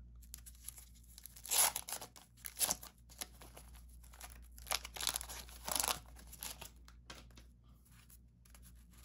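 A 1991 Fleer basketball card pack's wax-paper wrapper being torn open by hand, crinkling, in several short bursts.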